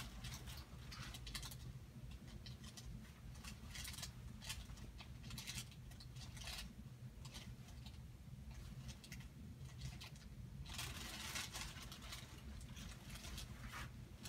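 Faint scattered rustling and light clicks of bodies and hands moving on a padded treatment table, over a low steady hum, with a louder stretch of rustling about eleven seconds in.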